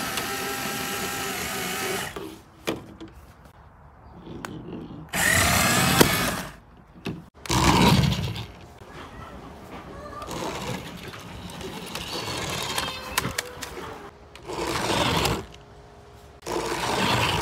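Small electric motors of remote-control toy cars whirring in several short bursts as they drive, with some voices in between.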